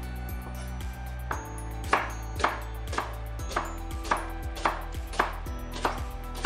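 Chef's knife slicing a red onion on a wooden cutting board, the blade knocking the board about twice a second, starting about a second in. Background music plays underneath.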